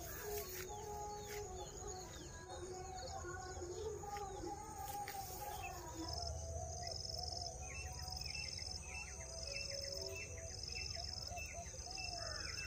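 A morning bird chorus with grey francolins (teetar) calling: many short call notes repeated over and over. From about halfway, a thin high note repeats about once a second.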